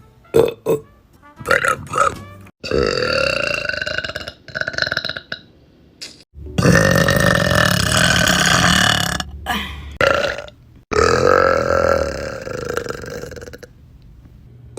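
Loud burps from young women: four short burps in the first two seconds, then a series of long, drawn-out burps, the longest lasting about two and a half seconds.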